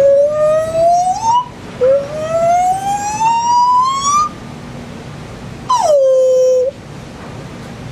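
Gibbon song: two long rising whoops, each climbing steadily in pitch, the second one longer. Near the six-second mark a call drops sharply and holds a lower steady note for about a second.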